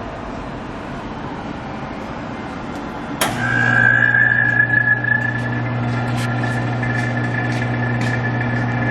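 A machine switches on with a sharp click about three seconds in, then runs steadily with a low hum and a high, even whine over a steady background noise.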